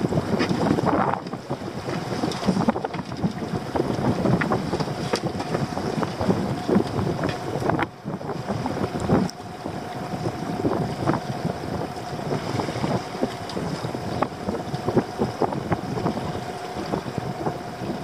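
Water lapping and slapping against the hull of a small drifting boat, with wind buffeting the microphone and frequent small knocks. A faint steady hum joins about halfway through.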